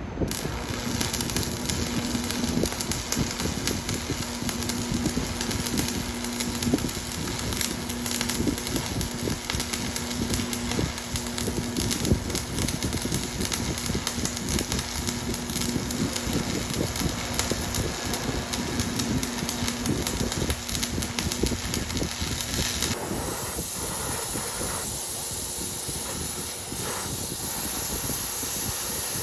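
Electric arc welding on cast iron: a steady crackling sizzle from the arc, with a faint hum underneath. About 23 seconds in, the crackle stops and the sound changes to a smoother noise with a thin high whine.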